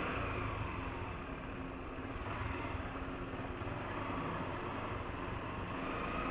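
Dual-sport motorcycle engine running steadily at low speed, a low even rumble with no revving.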